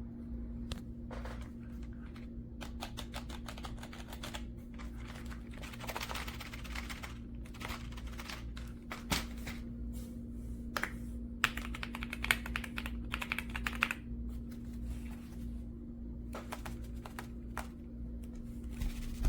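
Typing on an RK Royal Kludge S98 mechanical keyboard: runs of rapid key clicks in bursts, with short pauses between them.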